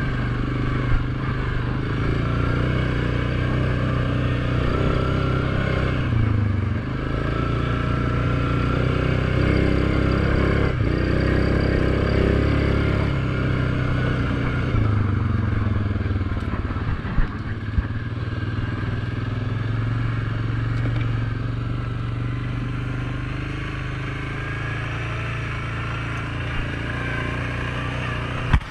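ATV engine running as the quad is ridden along a dirt trail, its note rising and falling with the throttle, with a few sharp knocks from the machine going over bumps.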